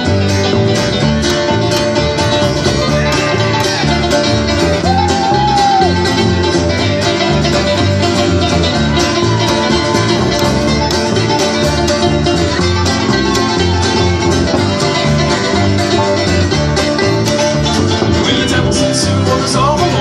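Live instrumental break by a string band: acoustic guitar, banjo and upright bass playing together with a steady beat.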